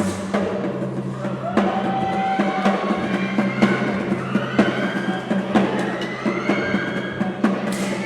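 Background music with a steady drum beat and sustained melodic tones.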